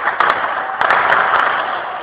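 Gunfire: several sharp cracks over a loud, sustained noisy wash that starts suddenly just before.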